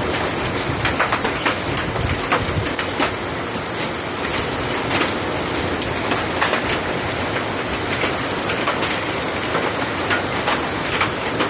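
Heavy rain pouring onto wet pavement and puddles: a steady hiss of rainfall with frequent sharp splats of drops landing close by.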